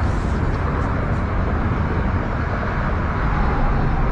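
Steady rumble of nearby road traffic, with a few faint clicks in the first second.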